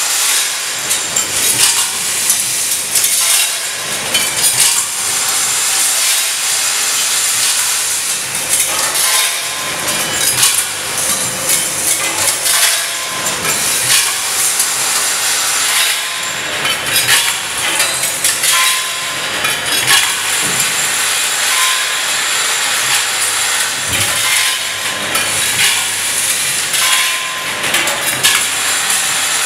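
Vibration disk (vibratory bowl) feeders of a packing machine running, small metal parts rattling and clinking as they are fed: a dense, steady clatter and hiss with many small clicks.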